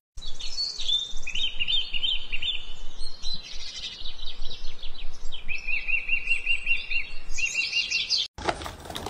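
Garden birds singing and chirping: varied high chirps and short phrases from more than one bird, with a fast run of repeated notes in the middle, over faint outdoor background. The birdsong cuts off abruptly near the end.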